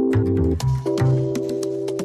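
Background music: sustained chords over a bass line with a steady percussive beat.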